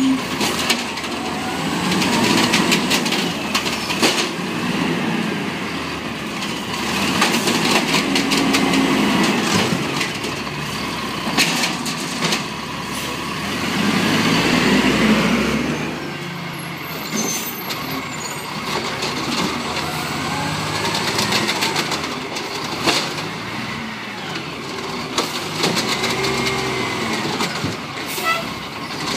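Automated side-loader garbage truck working its hydraulic lifting arm: the Peterbilt's engine revs up and down to drive the hydraulics, with a whine that rises and falls, while the arm lifts, shakes and sets down a wheeled cart with repeated knocks and clanks.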